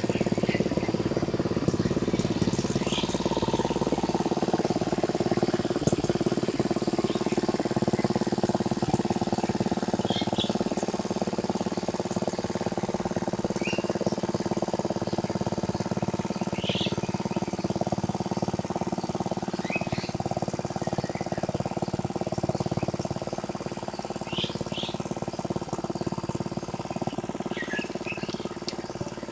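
Engine of a tractor plowing a rice paddy, running steadily and growing fainter near the end, with short bird chirps scattered over it.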